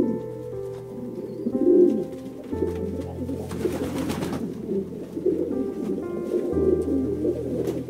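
Low, repeated bird calls over soft background music with long held tones, with a short hiss of noise a little past the middle.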